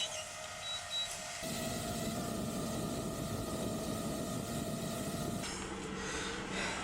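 Steady low rumbling background noise with a faint hum. It shifts abruptly about a second and a half in and again near the end.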